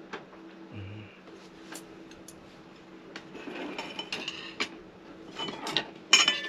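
Dishes and cutlery being handled, with scattered clicks and a busier clatter in the second half. Near the end comes one sharp clink, the loudest sound, which rings on briefly. A faint steady hum runs underneath.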